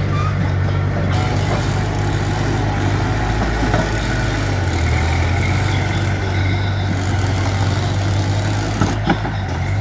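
Mitsubishi BD2F bulldozer's diesel engine running steadily, with two short sharp knocks near the end.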